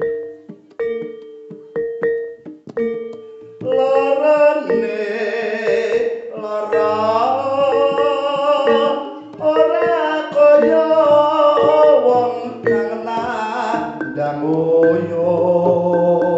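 Jaranan accompaniment music: evenly struck pitched metal percussion notes, joined about three and a half seconds in by a singer's wavering vocal line over the ensemble.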